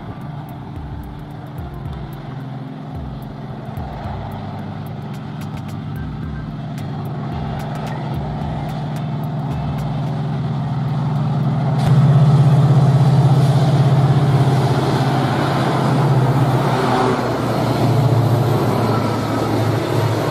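Train approaching along the track, its locomotive engine running with a steady low drone that grows louder, loudest from about halfway through.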